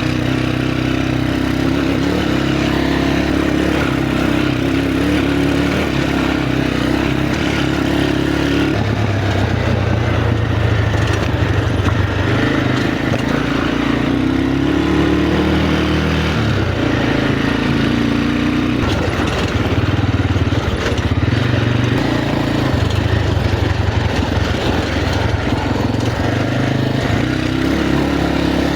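Motorcycle engine running under way on a rough off-road track, its note dropping and rising several times as the throttle and revs change.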